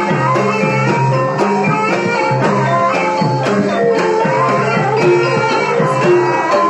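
Music: pitched instruments playing over a regular beat, with the low notes changing about once a second.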